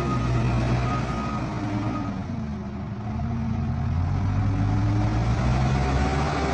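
A heavy vehicle's engine running steadily. Its pitch sags about two to three seconds in and then rises again, with a few short high beeps in the first couple of seconds.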